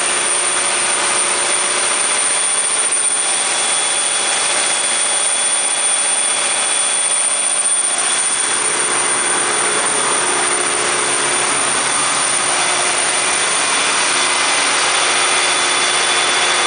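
Cummins QSK60-G7 V16 diesel engine of a 2000 kW generator set running steadily, a loud even rush with a faint high whine in it.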